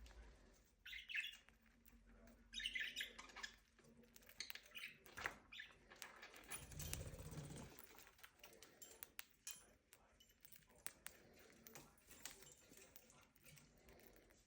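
Budgerigars chirping faintly, two short bursts of chirps in the first three seconds, with scattered small clicks and ticks and a brief low rumble about seven seconds in.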